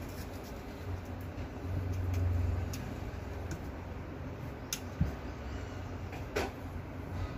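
Scattered light clicks and taps of a glass slide and the metal stage clips being handled on a student microscope's stage, over a low steady hum.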